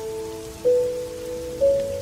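Slow, soft melody of single sustained notes over steady rain: a new note sounds about half a second in and another near the end, each ringing on beneath the next.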